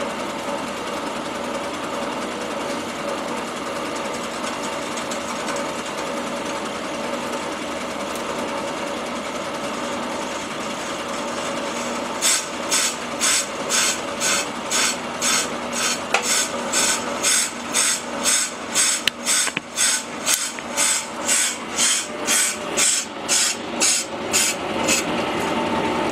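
Brake lathe turning a Willys Jeep cast-iron brake drum: the machine runs steadily, then about twelve seconds in the cutting bit starts a light pass and scrapes in regular pulses of about two a second. The bit is cutting on only part of each turn, the sign of a drum that is out of round.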